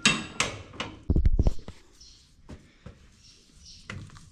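Sharp metal clicks and knocks from handling a round baler's hitch and jack, with a heavy low thump about a second in, then a few faint knocks.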